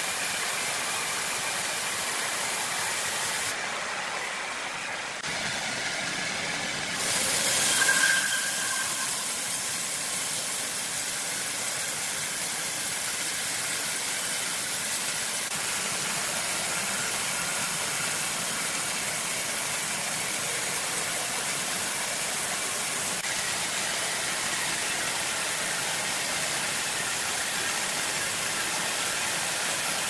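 Horizontal band sawmill running, its blade cutting lengthwise through a log of red incense wood with a steady, high rushing noise. A brief louder swell comes about eight seconds in.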